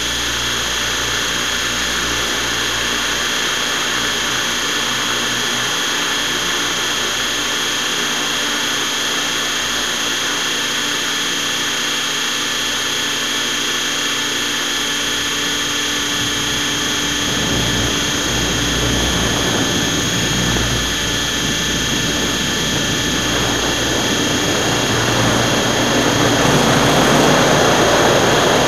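Radio-controlled helicopter's motor and rotor heard from a camera mounted on it: a steady high whine over a rushing noise, the rush building and growing louder in the last ten seconds as it climbs.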